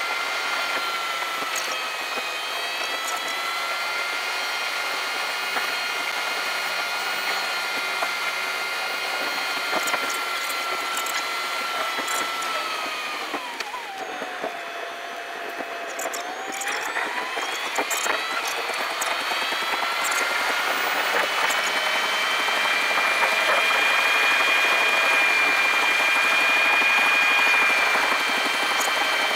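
Car engine and road noise inside the cabin, played back sped up so that it sounds like a high, steady whine like a drill. About halfway through the pitch falls as the car slows, then climbs again and runs higher towards the end as it speeds back up.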